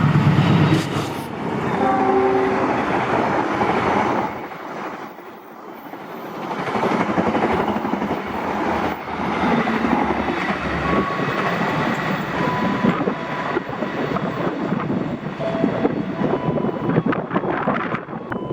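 Argo Dwipangga express passenger train sounding its horn in the first few seconds. It then runs through at speed, a loud, dense rush of wheel and rail noise lasting more than ten seconds.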